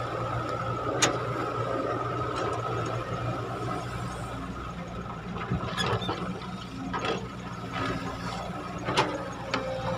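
Caterpillar hydraulic excavator working: its diesel engine runs steadily with a high, held whine as it digs and swings loads of soil. A few sharp knocks stand out, about a second in, around six seconds and near the end.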